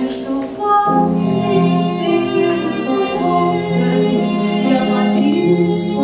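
Music: a woman singing a song over instrumental accompaniment, with the voice coming in about a second in.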